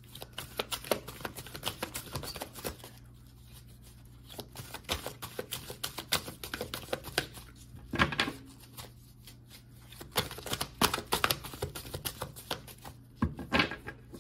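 A deck of tarot cards being shuffled by hand: several bursts of rapid clicking card noise with short pauses between them, and a few louder clicks about eight seconds in and near the end.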